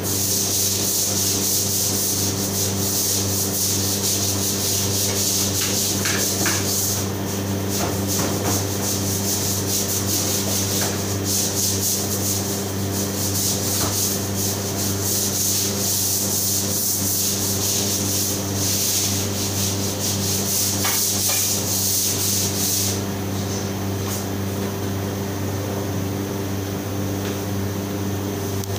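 A long-handled floor tool scrubbing a tiled floor in rapid back-and-forth strokes, in two long spells with a pause between, over a steady low machinery hum.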